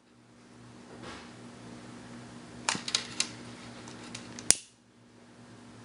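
A long-reach utility lighter in use to shrink heat-shrink tubing over a wall adapter's prongs: a few light clicks about three seconds in, then one sharp click about four and a half seconds in as the lighter is sparked again, over a faint steady hum.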